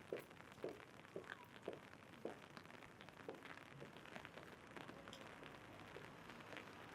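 Footsteps on wet pavement, about two a second, fading out after a couple of seconds, over a faint steady patter of rain.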